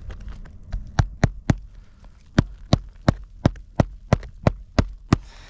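Hammer blows driving a roofing nail through an asphalt shingle: three quick strikes, a short pause, then nine steady strikes at about three a second.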